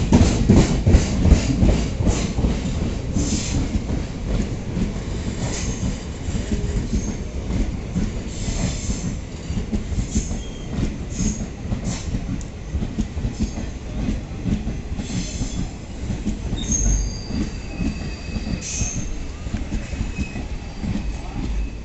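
Indian Railways passenger coaches rolling past a station platform, wheels clattering over rail joints, louder early on and easing off. In the second half, high thin wheel squeals ring out several times.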